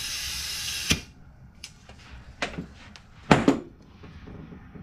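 Compressed-air blow nozzle hissing as it blows out a carburetor, cutting off sharply about a second in. Then a few knocks and clunks as the air hose and nozzle are handled, the loudest a double clunk near the end.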